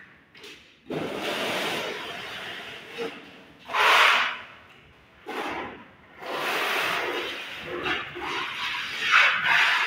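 Plastering trowel scraping and swishing wet cement mortar across a wall in a series of uneven strokes, one louder stroke about four seconds in.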